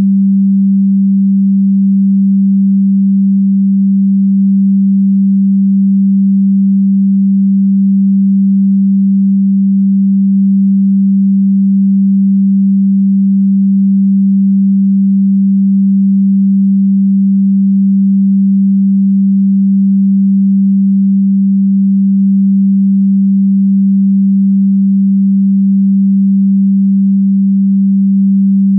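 A single pure electronic sine tone, low in pitch at about 200 Hz, held loud and completely steady with no change in pitch or volume.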